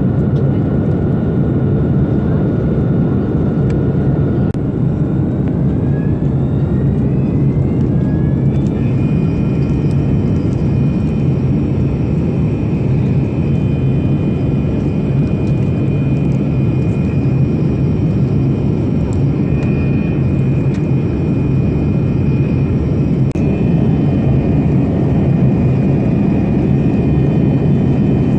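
Steady in-flight cabin noise of a Boeing 787 Dreamliner, heard from inside the cabin. A thin whine rises in pitch about five seconds in, then holds steady.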